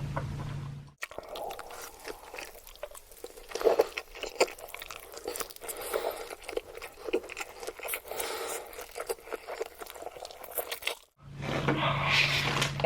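Close-miked mukbang eating sounds: dense, irregular chewing and crunching of spicy noodles. The eating starts and stops abruptly at two hard cuts.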